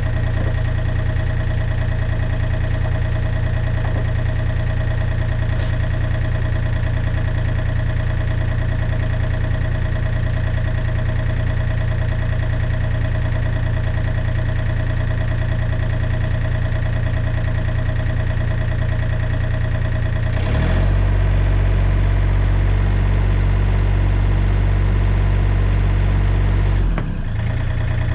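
Diesel engine of a John Deere 35D compact excavator idling steadily. About twenty seconds in its note deepens and grows louder for around six seconds as a hydraulic function is worked, then drops back to idle.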